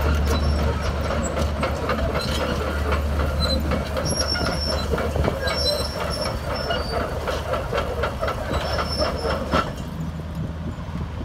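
Daewoo Solar 220 crawler excavator travelling on its steel tracks: the diesel engine runs with a steady low drone while the track links clank and squeal irregularly. The squeals and clanks die down near the end.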